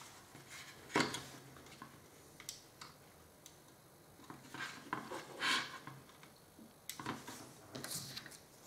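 Sparse light clicks and taps of small plastic kit parts and hobby tools being handled on a work surface, with a sharper click about a second in and a few more near the end.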